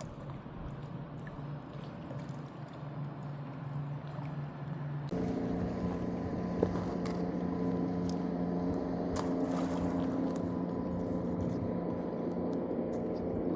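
An engine running with a steady drone. About five seconds in it changes abruptly to a louder, higher hum made of several steady tones, with faint scattered clicks throughout.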